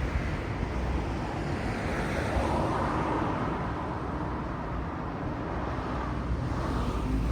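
Road traffic with wind buffeting the microphone: a steady low rumble, with a vehicle passing about midway.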